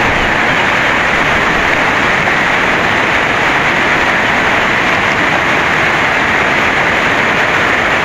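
Light rain falling on a creek's surface: a steady, even hiss.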